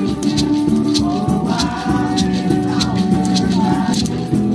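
Live acoustic guitar played with a voice singing over it and a hand shaker rattling in a steady beat, about two to three strokes a second.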